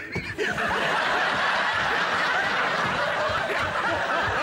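Studio audience and panellists laughing together. The laughter swells about half a second in and then holds steady and loud.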